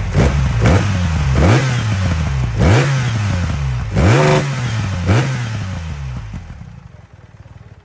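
BMW R1300GS boxer-twin engine, running a stage 2 tune with an aftermarket DNA intake filter, revved hard in about six quick throttle blips from idle. Each blip falls back before the next, and the engine then settles and fades near the end.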